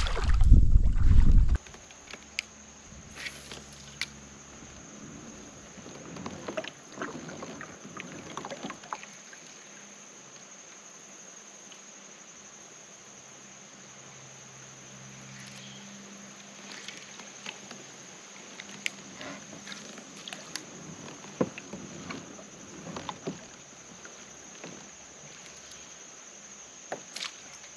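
Quiet sounds of fishing from a kayak: scattered light knocks and clicks of rod and gear against the hull, and small water sounds. A brief loud splash and handling noise in the first second and a half, as a largemouth bass is let go over the side.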